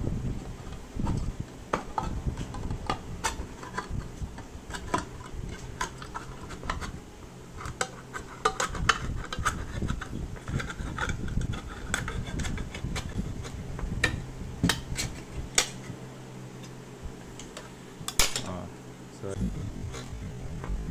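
Tip of a metal spoon pressed and worked around the rim of a tin can lid to cut it open: irregular metallic scraping and sharp clicks as the spoon bites into the thin lid.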